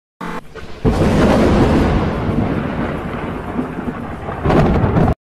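Thunderstorm: a loud thunderclap about a second in rolls into a long rumble over rain, with a second loud burst of thunder near the end before the sound cuts off abruptly.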